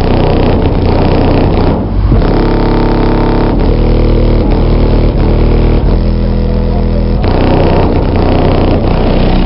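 Bass-heavy music played loud through a car audio system of eight 12-inch Pioneer Premier TS-W3002SPL subwoofers, heard from outside the car, the bass notes changing every fraction of a second.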